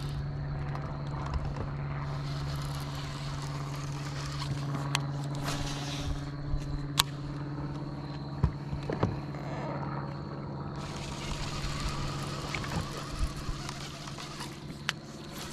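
Electric bow-mounted trolling motor humming steadily, with scattered sharp clicks from the baitcasting reel and rod being handled.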